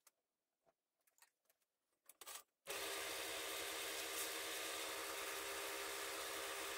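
Wood lathe stopped, with a few faint clicks and taps at the four-jaw chuck as it is worked with its chuck key; then, about two and a half seconds in, the lathe running with a steady hum.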